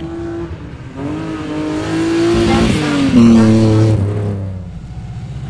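Rally car engine at high revs approaching and passing by: it grows louder, its note drops sharply at the loudest point about three seconds in, then it fades away.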